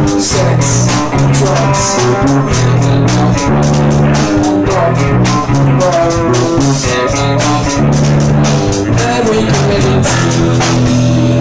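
Live rock band playing through a PA in a small room: electric guitar, bass guitar and drum kit in an instrumental passage with no vocals. Near the end the drums stop and the bass and guitar ring on.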